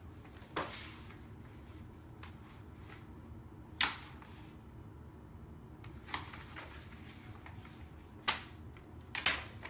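Vinyl wrap film being handled and tacked onto a mini fridge: a handful of sharp snaps and taps at irregular intervals, the loudest about four seconds in and near the end, over a low steady hum.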